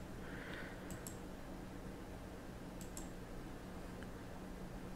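Faint computer mouse clicks, a few at a time with a second or two between them, over a low steady hum.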